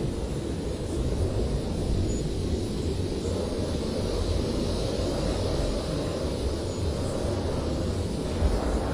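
Blizzard wind: a steady low rumble with a fainter hiss of blowing snow above it, the hiss swelling slightly midway.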